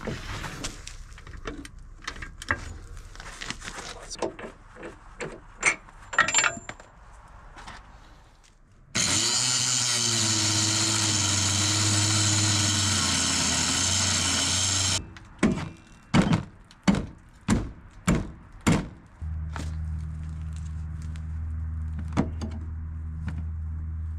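Scattered metal clicks and clanks of tools, then an angle grinder with a cut-off wheel cutting through the seized upper nut of a truck's front shock absorber for about six seconds, sending off sparks. It stops suddenly and is followed by a quick run of about seven sharp knocks, then a steady low hum near the end.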